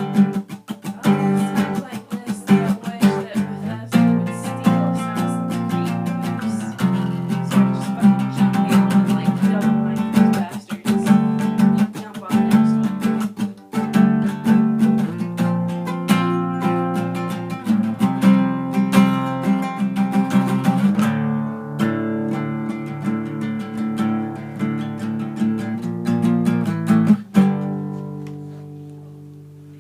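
Acoustic guitar playing a run of strummed and picked chords, ending on a last chord about 27 seconds in that rings out and fades away.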